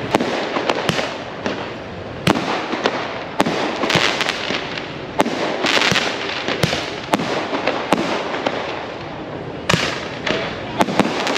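Firecrackers and fireworks going off again and again: sharp, irregularly spaced bangs with a few longer crackling bursts over a noisy background.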